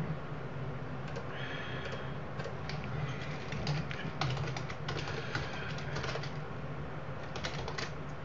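Irregular clicking of a computer keyboard and mouse over a steady low electrical hum, with a brief high chirp about a second in.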